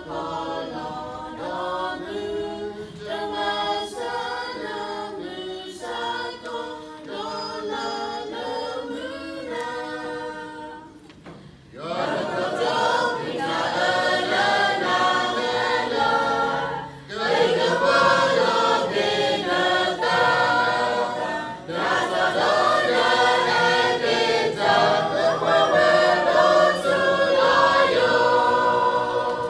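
Church choir singing a hymn unaccompanied. It sings softly for the first ten seconds or so, pauses briefly, then sings louder, with two short breaks for breath.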